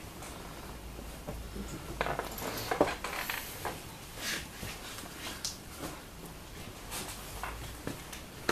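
Scattered light clicks, taps and clinks of a laptop and things on a table being handled, over faint room noise.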